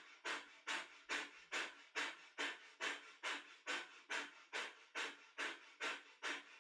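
Breath of fire: rapid, rhythmic panting breaths through the nose, about two and a half a second, each a sharp exhale pumped from the belly.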